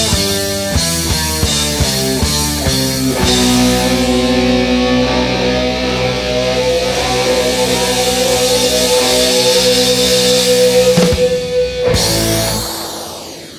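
Background rock music with electric guitar and drums, ending on a long held note, then fading out near the end.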